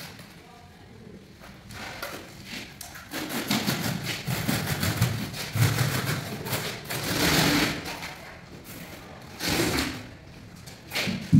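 Scraping and knocking of tile-setting work: a notched trowel dragged through wet tile adhesive, a metal screed box being shifted across the floor, and adhesive poured out of a plastic bucket, in a run of irregular scrapes with a thud at the very end.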